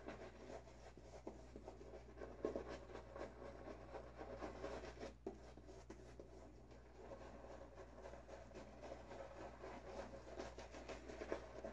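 Omega Pro 48 boar-bristle shaving brush scrubbing glycerin soap lather into a beard, heard as faint, irregular bristly scratching and rubbing.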